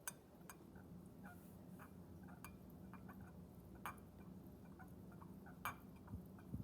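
Butter knife stirring food colouring into cooking oil, giving faint, irregular clicks as it taps the container, about half a dozen over the stretch, over a low steady hum.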